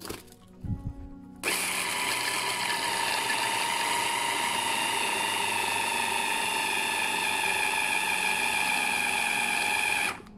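Electric mini chopper's motor running steadily, blending crushed Maltesers and melted butter. It starts about a second and a half in, after a few knocks as the bowl is handled, and cuts off suddenly just before the end.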